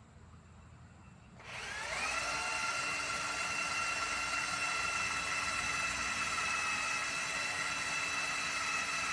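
Electric drill spinning up about a second and a half in and then running at a steady high whine. The steel bit is boring at a broken stainless-steel bolt and is not getting through.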